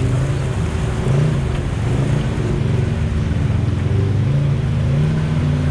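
Side-by-side UTV engine running, its revs rising and falling, while driving up a rocky creek bed with creek water splashing around the tyres.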